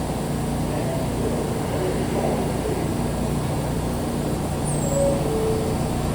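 An R160 subway train gives a steady low rumble with faint mechanical hum tones.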